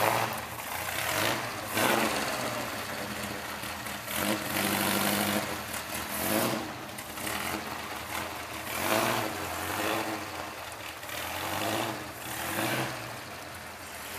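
Vintage open two-seater sports car's engine revving as the car moves off at low speed, swelling and easing several times.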